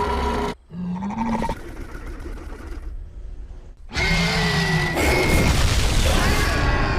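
Film demon creature sound effects: deep growling roars laced with pitched, gliding moans. The sound cuts out about half a second in, runs quieter for a few seconds, then a loud roar comes back about four seconds in.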